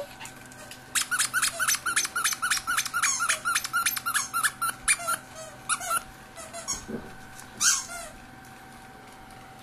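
A squeaky dog toy being chewed by a Shih Tzu puppy, squeaking in a fast run of about four squeaks a second for several seconds, then stopping. One more loud squeak comes near the end.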